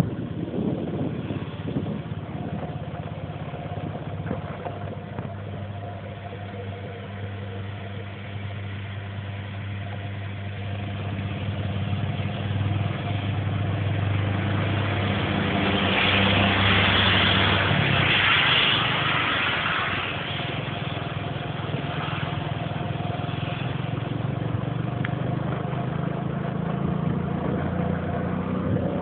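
An engine running steadily, with a louder stretch of noise from about fifteen to twenty seconds in.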